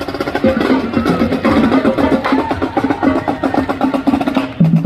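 Marching band playing brass instruments, including sousaphone and trumpets, over a steady beat of drums.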